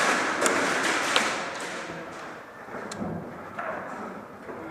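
Rustling and scuffing of gear close to the microphone for about two seconds, with three sharp cracks of airsoft play. The loudest crack comes about a second in, and the last comes near three seconds.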